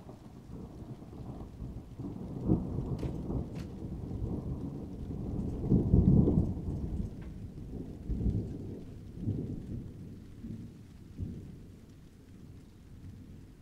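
Near-continuous rolling thunder: a low rumble that swells several times, loudest about six seconds in, then dies away toward the end.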